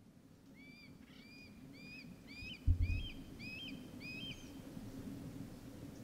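A hawk calling a series of about seven short, clear, hooked notes, roughly two a second. A brief low thump comes about two and a half seconds in.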